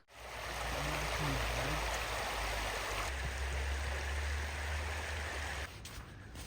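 Steady rushing of sea surf on a beach, with a low rumble underneath; it drops away sharply about a second before the end.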